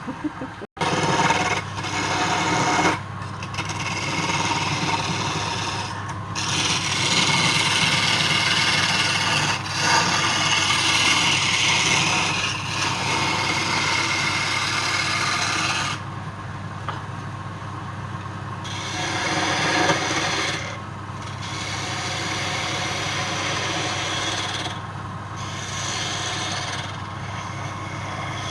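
Wood lathe running with a steady motor hum while a turning tool or abrasive scrapes the spinning wood, a rough hiss that stops and starts several times.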